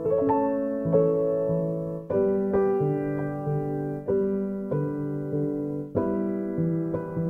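Gentle background piano music, with a new chord struck about every two seconds and notes ringing on between them.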